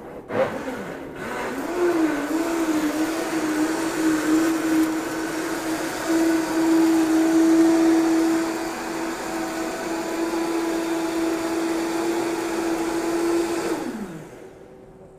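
Countertop blender puréeing chili peppers, garlic, brown sugar, salt and water into a hot sauce. The motor starts about half a second in, wavers in pitch as it comes up to speed, then runs at a steady high whine, and winds down near the end.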